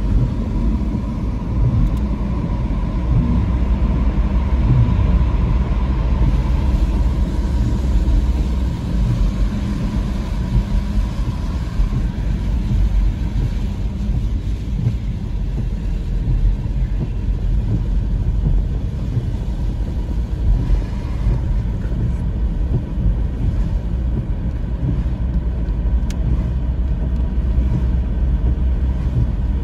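Steady low rumble of tyre and engine noise heard inside a moving car's cabin.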